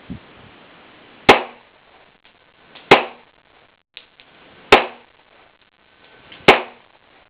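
Four gunshots from a .40-calibre handgun, fired one at a time about every second and a half to two seconds.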